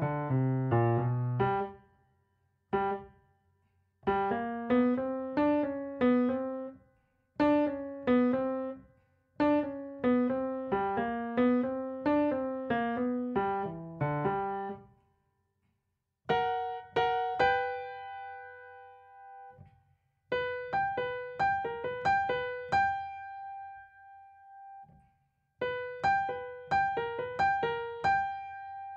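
Grand piano playing the right-hand melody of a boogie-woogie piece alone, at slow practice tempo. Short phrases of quick notes are broken by brief pauses, and about halfway through the line moves up higher, with some notes left ringing.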